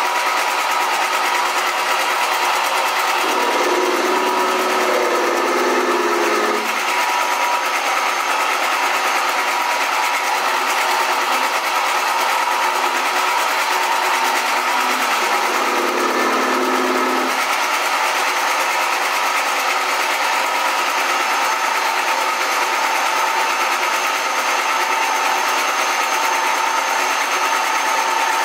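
Metal lathe running, turning down an aluminum bar, with a steady whine from its motor and gears. Twice, about three seconds in and again around the middle, a lower tone joins for a few seconds.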